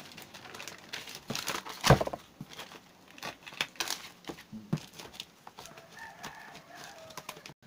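Plastic courier wrapping crinkling and rustling as hands pull it off a taped cardboard box, with one sharp thump about two seconds in.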